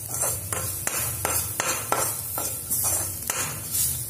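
Steel ladle stirring and scraping chopped onion, garlic and ginger around a kadhai, striking the pan about three times a second, over the hiss of the mixture frying in oil.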